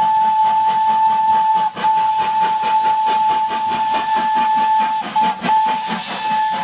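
Steam locomotive whistle blowing long, steady blasts, broken briefly about two seconds in and again near the five-second mark, over the quick, even chuffing of the engine's exhaust, about four beats a second.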